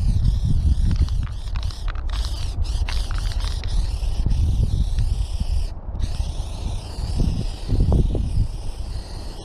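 Aerosol spray-paint can hissing in long passes, with brief breaks about two seconds and six seconds in. Under it runs a loud, uneven low rumble of wind buffeting the microphone.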